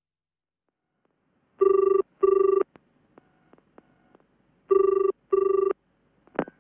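Telephone ringing in the British double-ring pattern: two ring-ring pairs about three seconds apart, each ring a short, steady, buzzy tone. The call is being placed and about to be answered, and a few clicks follow near the end.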